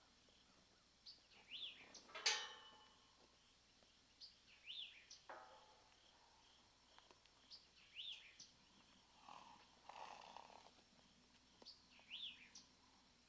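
A bird calling a short rising-and-falling chirp over and over, about every three seconds, with faint higher peeps between. One sharp knock about two seconds in is the loudest sound.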